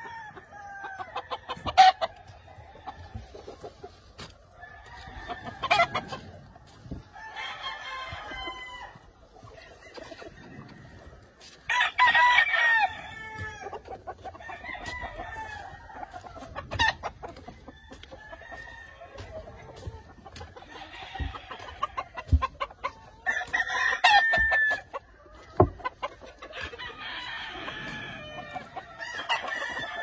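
Several gamefowl roosters crowing in turn, with shorter calls between. The loudest crows come about twelve and twenty-four seconds in.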